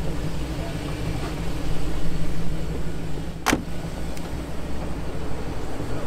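A vehicle engine idling with a steady low hum, and a single sharp click about three and a half seconds in.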